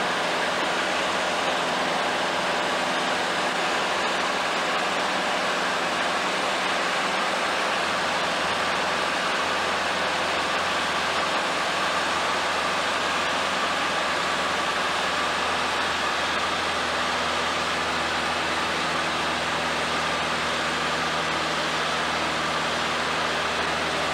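Small high-wing propeller airplane's engine running steadily, heard from inside the cabin as an even, unchanging noise with a few steady hums.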